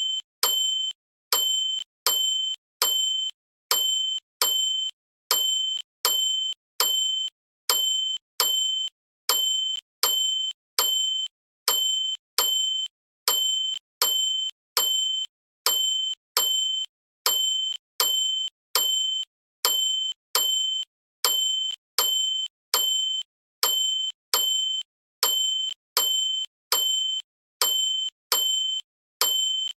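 A small bell dinging over and over, the same short, high, bright ring looped about four times every three seconds, each ding cut off sharply.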